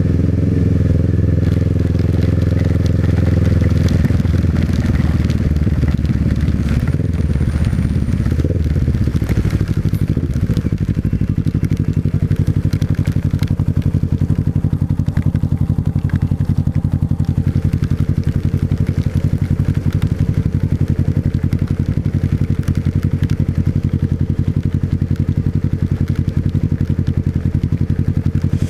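Motorcycle engine running, its pitch shifting down and settling over the first several seconds, then holding a steady, even beat like an idle for the rest.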